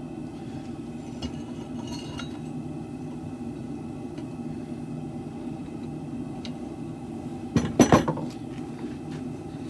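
Steel being hammered on an anvil while forging a sword blade: a few light metallic clinks, then a quick run of three or four hard ringing hammer strikes about eight seconds in, over a steady low hum.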